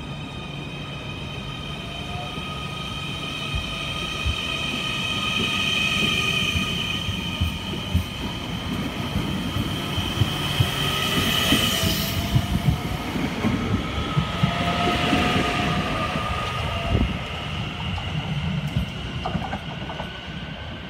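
NS Sprinter New Generation (SNG) electric multiple unit pulling out and passing close by: a steady high whine from its electric drive with wheels clicking over rail joints and points. It is loudest about halfway through as the cars go by, then eases off as the train moves away.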